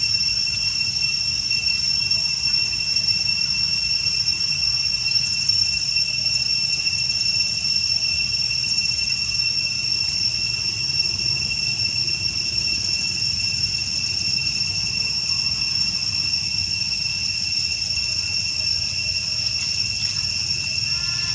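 Steady, unbroken high-pitched insect drone over a low rumble.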